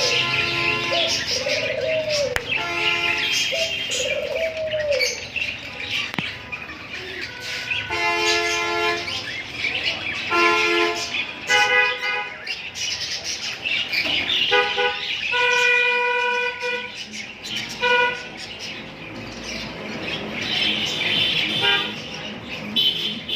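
Pet lovebirds calling: a string of short, harsh, pitched calls, with some chirping between them.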